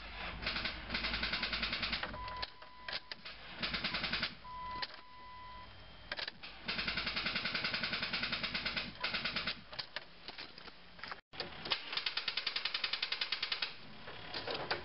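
Car starter solenoid chattering: rapid clicking at about nine clicks a second, in four bursts as the key is held in the start position. The solenoid pulls in, the starter's draw pulls the battery voltage down so that it drops back out, and this repeats, a symptom of a weak, discharged battery.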